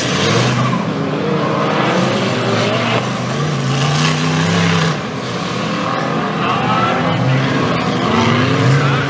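Engines of 4WD off-road race vehicles running hard on a dirt course, their pitch rising and falling repeatedly as the throttle is worked, over a steady rush of tyre and gravel noise.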